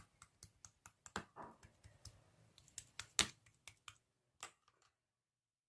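Faint, irregular light clicks and taps, about a dozen and a half spread unevenly, the loudest a little after three seconds in, stopping at about four and a half seconds.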